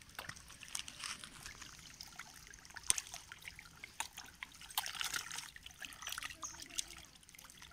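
Catfish splashing and thrashing at the water's surface as they crowd in to feed, a continuous patter of small irregular splashes and slaps with one sharper slap about three seconds in.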